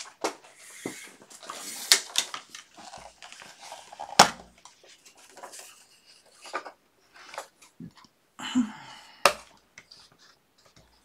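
Paper and craft tools handled on a tabletop: rustling and sliding of paper with several sharp clicks and knocks, the sharpest about two, four and nine seconds in.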